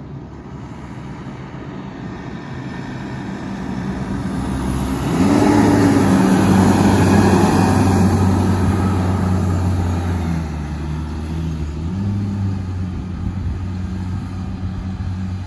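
Fire engine's diesel engine passing close at low speed, growing louder as it approaches and loudest about five to nine seconds in, then fading as it moves away. The engine pitch rises about five seconds in and again about twelve seconds in as it accelerates.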